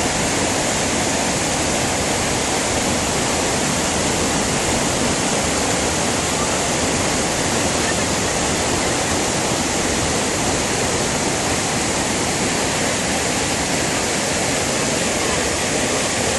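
Floodwater from an overflowing reservoir pouring over a low spillway weir and rushing down over rock slabs: a steady, loud rushing of water.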